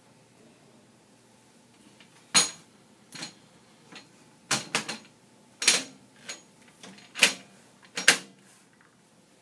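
A series of about eight sharp clicks and knocks, irregularly spaced over some six seconds, from the hardware of a Dell PowerEdge 840 server being handled as a hard drive is installed.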